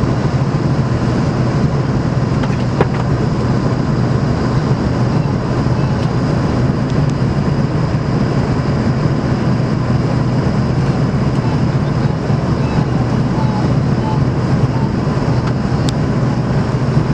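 Steady drone inside a jet airliner's cabin in flight: engine and airflow noise through the fuselage, heaviest in a low hum, unchanging.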